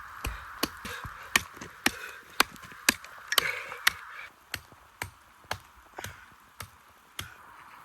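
Steady rain, with a run of sharp knocks about two a second that stops near the end.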